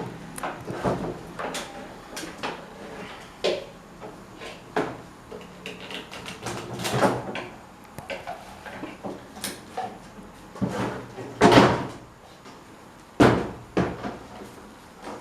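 Parts of an old standing electric fan being handled and knocked about during restoration work: irregular clunks, knocks and scrapes, the loudest about eleven and a half and thirteen seconds in.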